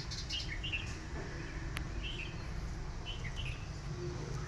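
Small birds chirping in short clusters, three times, over a steady low background rumble, with one sharp click partway through.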